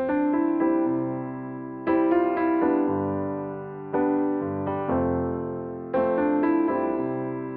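Background piano music: slow, gentle chords struck about every two seconds, each ringing out and fading before the next, with a few quicker notes after each chord.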